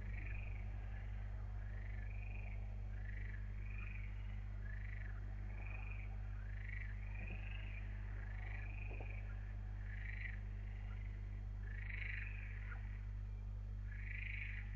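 Short, arching animal calls repeating about once a second in an outdoor chorus, over a steady low electrical hum.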